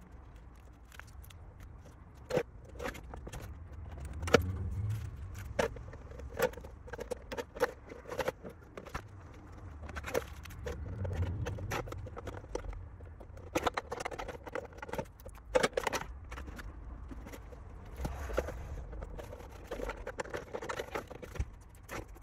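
Small hard objects being handled on a workbench: scattered sharp clicks and taps at irregular intervals, with some light scraping.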